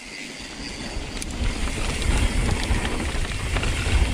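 Mountain bike rolling down a rocky, loose-stone trail: tyres rumbling and rattling over stones, with wind on the action-camera microphone. It gets louder about a second in.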